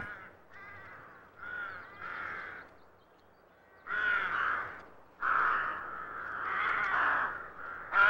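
Rook cawing repeatedly: faint caws in the first three seconds, a louder caw about four seconds in, then a longer run of calls from about five seconds until near the end.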